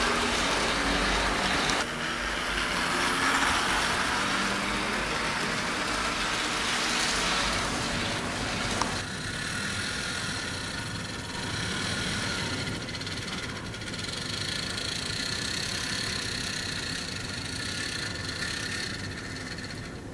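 HO-scale model trains running on track: first a double-stack container train rolling past with a steady rattling rumble, then, after a change about nine seconds in, a quieter model locomotive moving through the yard with a thin, steady high whine.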